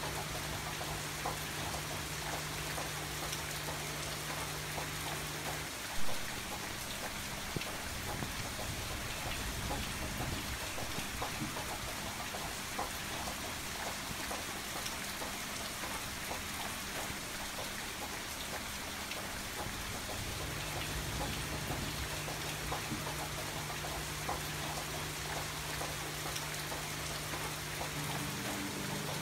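Steady rain with many small drop hits, under a low steady hum that stops about six seconds in and returns about twenty seconds in. A single sharp thump comes about six seconds in.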